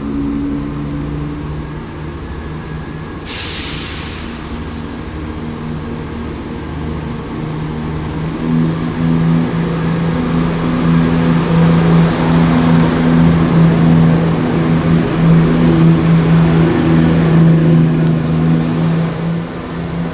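Diesel engines of a Chiltern Railways Class 168 Clubman diesel multiple unit running at a steady pitch as the train pulls out, getting louder through the middle. A short hiss of released air is heard about three seconds in.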